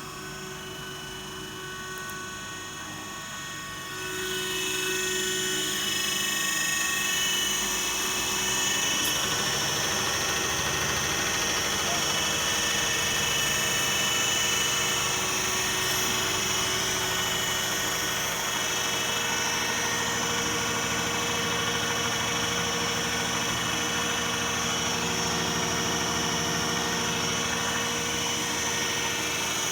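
Diesel injector and pump test bench running with a steady machine drone and whine. It steps up louder about four seconds in, then holds steady.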